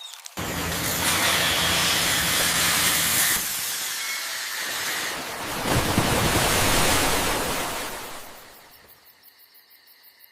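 Loud, steady hissing noise that shifts in tone twice and fades away over the last two seconds.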